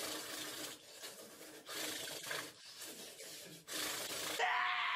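Rasping, rubbing noise in a string of bursts about a second long. Near the end a man's drawn-out groan begins, sliding down in pitch.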